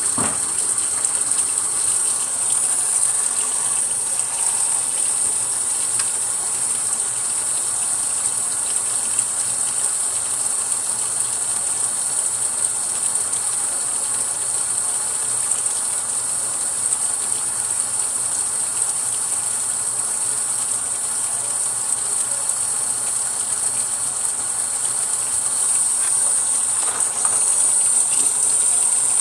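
Kitchen faucet running steadily, the stream splashing into a plastic bin full of empty lip gloss tubes. It gets a little louder in the last few seconds as hands rinse the tubes under the stream.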